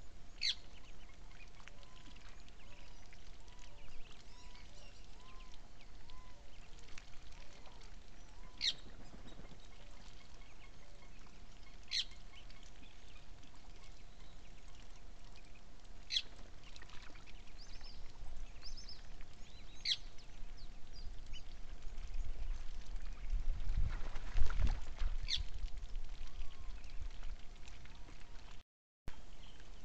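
Waterbirds calling at a lagoon: about six short, sharp, high calls spaced several seconds apart, over a faint steady high drone. A low rumble rises briefly near the end.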